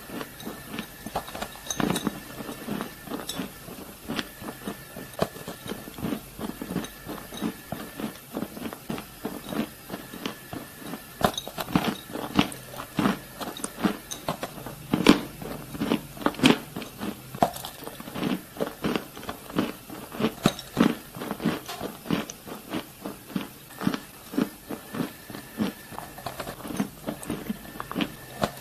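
Close-miked biting, crunching and chewing of chalky white lumps such as compressed cornstarch, chalk or clay: a dense, irregular run of crisp cracks and crumbles, the sharpest bites near the middle.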